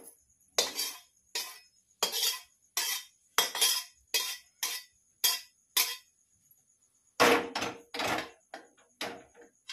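A metal spatula scraping and knocking against a steel kadhai, about a dozen short strokes with a brief pause in the middle, as the last of the roasted semolina is scraped out of the pan.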